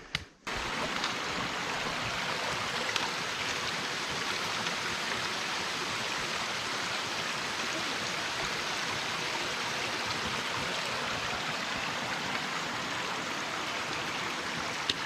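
Mountain stream rushing in a steady, even wash of water noise that starts abruptly about half a second in.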